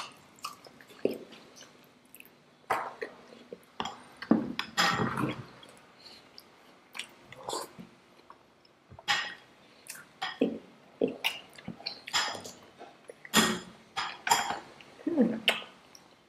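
People chewing and biting Indian sweets close to the microphone: irregular wet mouth smacks and clicks in clusters.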